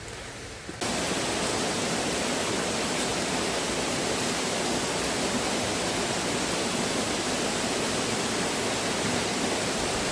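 Steady rush of river water, a dense even hiss that sets in abruptly about a second in.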